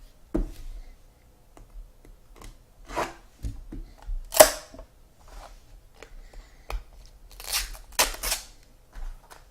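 Trading cards and their plastic holders and packaging being handled on a table: scattered light clicks and taps with short sliding, rustling swishes, the loudest about four and a half seconds in and a cluster near the end.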